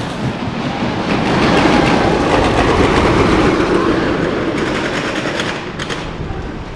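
A ride train rattling along its track, getting louder as it passes and then fading away.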